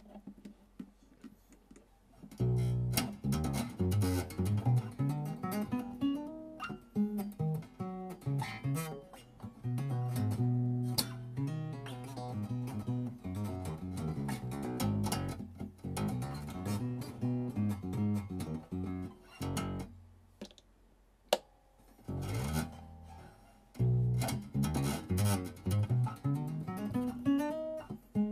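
Gretsch G5440 hollow-body electric bass played with the fingers: a run of low plucked notes starts about two seconds in, breaks off for a couple of seconds later on, then picks up again.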